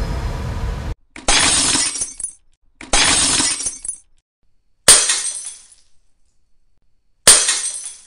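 A run of glass-breaking sound effects. A shattering crash cuts off about a second in, two more crashes follow, each about a second long, and then two sharper smashes, each a sudden crack that trails off.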